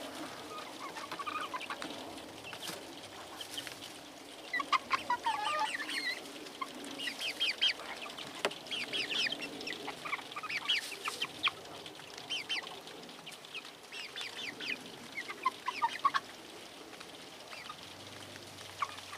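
Several young chickens cheeping and clucking, with many short calls scattered and overlapping, some in quick runs.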